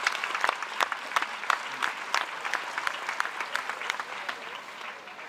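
Spectators applauding, many hands clapping, loudest in the first few seconds and fading out near the end.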